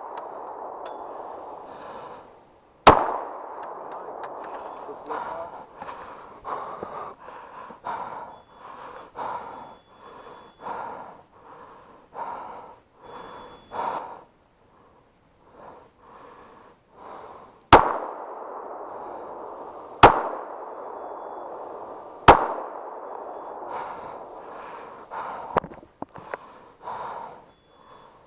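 Pistol shots: five sharp single reports, one about three seconds in, then a spaced string of three near the middle, then a fainter one about 25 seconds in. Between the shots there is choppy rustling noise.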